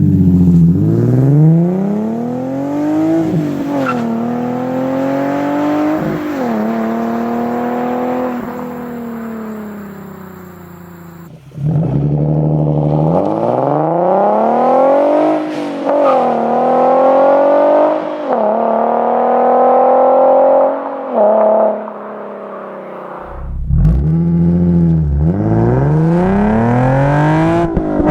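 Nissan 370Z's 3.7-litre V6 through an aftermarket short-tail exhaust, accelerating hard with the pitch climbing and dropping at each upshift. Three separate pulls follow one another, joined by abrupt cuts.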